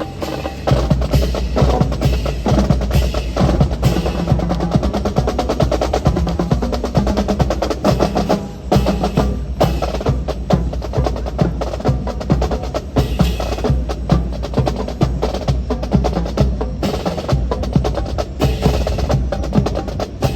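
Rapid, rhythmic wooden clacks and slaps of drill rifles being spun, caught and struck during a fancy rifle drill, over music with a steady beat.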